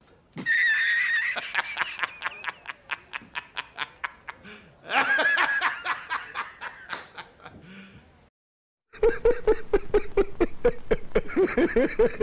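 A string of meme laugh sound effects. First comes a high-pitched laugh that opens on a squeal and breaks into rapid snickering pulses, with a second burst about five seconds in. After a short gap, a lower-pitched laugh starts near the end, also in quick, even pulses.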